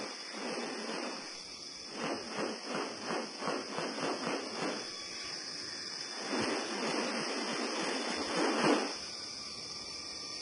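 Rainforest ambience: a steady high insect drone, over which come a quick series of harsh, rasping pulses, about four a second, and then one longer rasp that swells and stops abruptly near the end.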